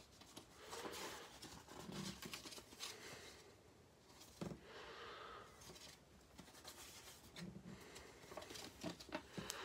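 Pages of a paper instruction booklet being handled and turned: faint, repeated paper rustling with a few small clicks.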